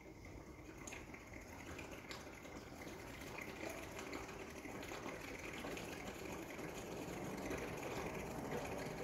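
Antifreeze coolant poured by hand from a jug into the radiator filler of a 1978 Peterbilt 352, a steady pour that grows gradually louder.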